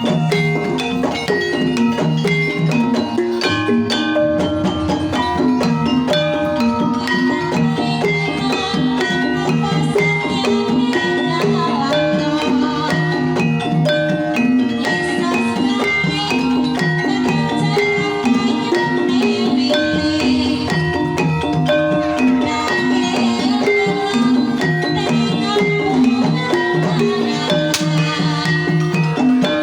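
Banyumasan tayub gending played on gamelan: struck keyed instruments ringing out a busy, repeating melody over a steady low note pattern.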